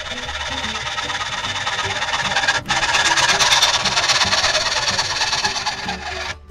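Hand hacksaw cutting through a metal tube in a steady run of back-and-forth sawing strokes, with a brief break about two and a half seconds in. Background music plays underneath.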